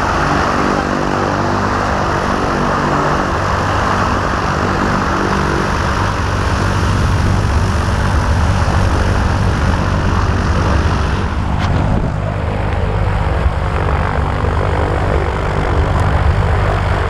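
Single-engine propeller plane's engine running steadily close by, a constant hum with a hiss over it; the hiss drops off about eleven seconds in.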